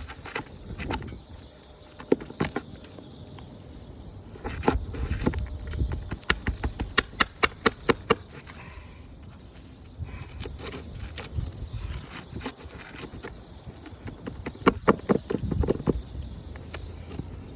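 Hand tools knocking and scraping on asphalt roof shingles as stubborn roofing nails are pried loose, with a quick run of sharp taps, about four a second, around the middle and more knocks near the end.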